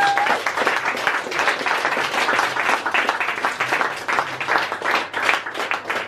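A small audience applauding, a dense patter of many hands clapping at the end of a talk.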